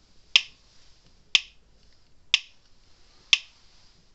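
Speedrite 980 electric fence energizer ticking with each output pulse: four sharp clicks about a second apart. The unit is powered and pulsing while it is under test for a suspected bad diode, and the repairer thinks it may be clicking faster than it should.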